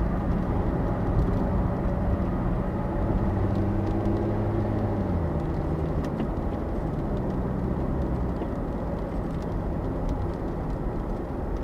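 Car driving on the road: a steady engine hum with tyre and wind noise, the engine note dropping about five seconds in.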